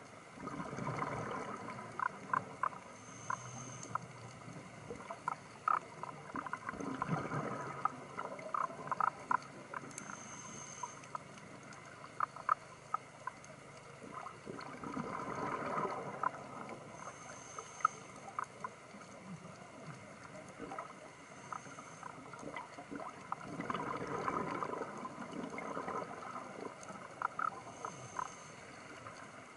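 Underwater sound of a scuba diver's regulator breathing: exhaled bubbles gurgle up in swells every eight seconds or so, with scattered sharp clicks throughout.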